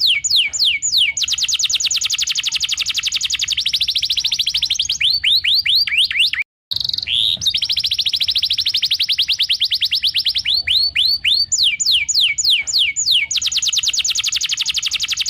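Domestic canary singing: runs of quick downward-sliding whistled notes alternating with long, very rapid trills, high-pitched and loud. The song breaks off briefly about six and a half seconds in, then carries on.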